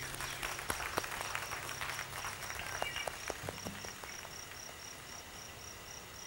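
Cricket chirping in a steady high-pitched pulse, about three chirps a second. Light crackling rustles come and go over the first few seconds, then fade out.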